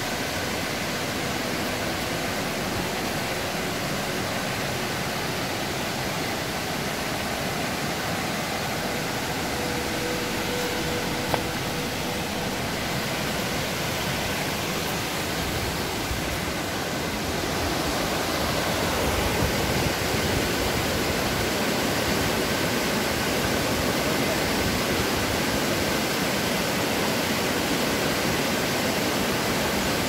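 Waterfall and rocky stream rushing steadily, a little louder from about halfway through, with one brief click near the middle.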